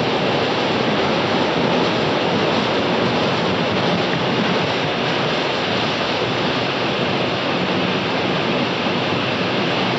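Automatic car wash spray jets blasting water onto the windshield and body, heard from inside the car's cabin as a steady, even rush of water.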